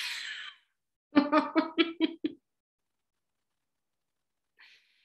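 A woman laughing: a breathy puff, then a quick run of about six short laughing notes, with a faint hiss near the end.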